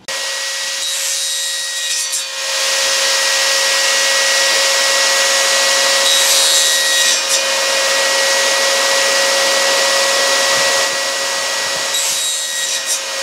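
Benchtop table saw running with a steady motor whine, its blade cutting through a length of cane. The cutting noise grows louder about two seconds in and eases off about eleven seconds in.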